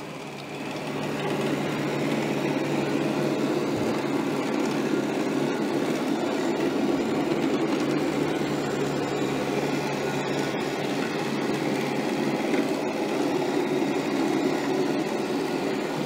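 Shark AV2501AE robot vacuum running across a carpet: a steady drone from its suction motor and brushroll, with a low hum underneath. It swells to full level within about the first second and then holds steady.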